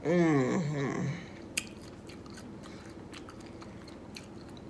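A woman hums a drawn-out "mmm" whose pitch wavers and falls for about a second. She goes on chewing a cherry Kool-Aid pickle, with scattered wet mouth clicks and smacks.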